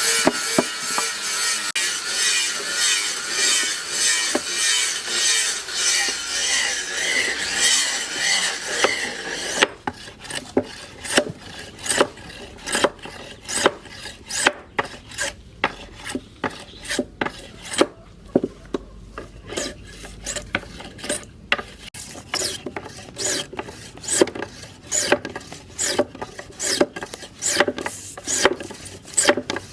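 Hand file rasping in repeated back-and-forth strokes, about two a second. The strokes run close together for the first third, then come as separate, sharper scrapes.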